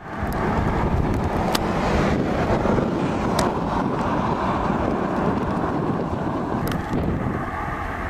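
Wind buffeting the camcorder microphone outdoors: a steady low rushing rumble, with a few faint clicks.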